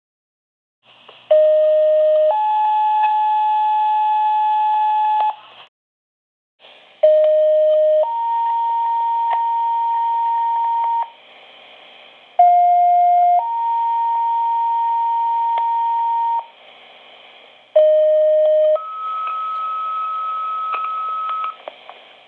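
Fire dispatch two-tone paging tones over a scanner radio, the alert that sets off fire station and EMS pagers for a dispatch. Four tone pairs in a row, each a short lower tone followed by a longer, higher one, with radio hiss in the short gaps between.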